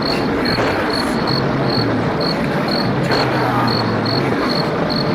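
Crickets chirping in an even rhythm, about two to three chirps a second, over a loud, steady rushing noise.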